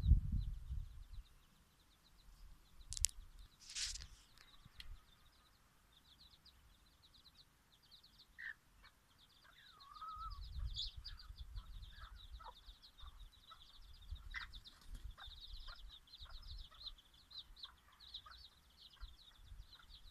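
Bantam chicks peeping in a fast, near-continuous stream of short high chirps, with a few lower, longer calls among them. Two sharp clicks come about three and four seconds in, and a low rumble sits under the second half.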